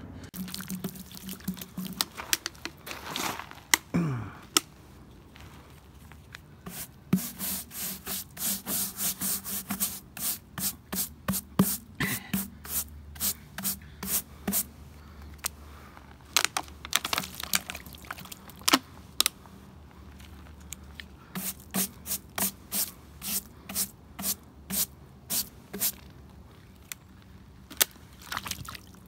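Small stiff-bristled hand brush scrubbing dirt off a plastic mesh riser lid and the damp concrete around it, in runs of quick strokes about four a second with short pauses between them.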